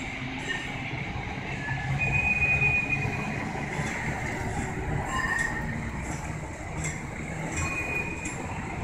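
Historic Lisbon tram's steel wheels squealing on curved track as it turns: high, drawn-out screeches that come and go, loudest about two seconds in and again near the end, over the low rumble of the tram rolling. A few light clicks in the second half.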